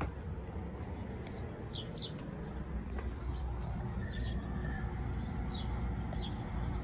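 Small birds chirping now and then, short high calls scattered through, over a steady low outdoor rumble.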